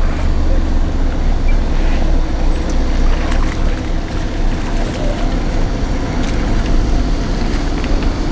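A steady low mechanical hum under a constant rushing noise, with a few faint clicks.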